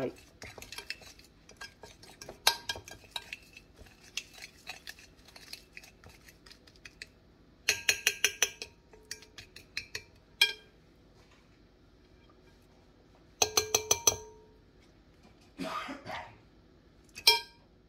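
Metal fork stirring and scraping a spice-and-oil paste in a cut-glass bowl, clinking against the glass. Twice, about halfway through and again later, it taps quickly, about eight taps in a second, and the glass rings briefly.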